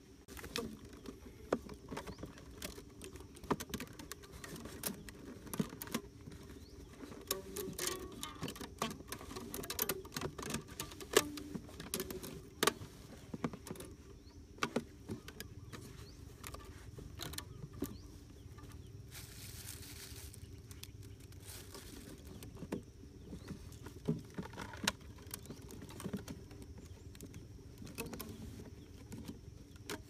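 Handling noise: a clear plastic container being fitted and pressed onto a blue PVC pipe trap frame, giving irregular light clicks and taps of plastic on plastic, busiest in the first half.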